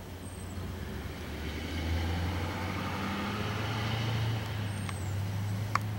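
A motor vehicle passing, its low engine rumble swelling over the first few seconds and easing off again, with a single sharp click near the end.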